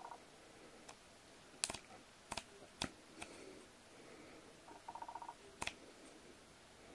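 Canon EOS R6 camera with an EF 17-40mm f/4L lens being handled: about six sharp clicks, the loudest under two seconds in, and a short rapid buzzing about five seconds in while the camera tries to focus.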